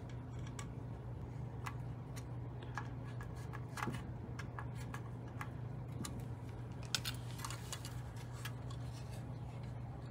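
Small scattered clicks and ticks of a screwdriver and small screws against the locomotive's metal body shell as the pantograph is screwed back on, over a steady low hum.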